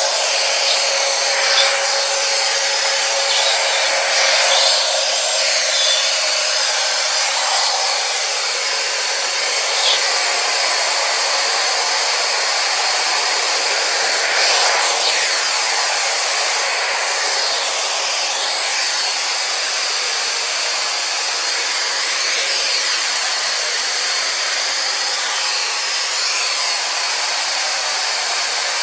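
Xiaomi robot vacuum cleaner running: a steady whirring fan and brush noise, high and thin with little low end, its pitch shifting a little now and then, with a few light knocks.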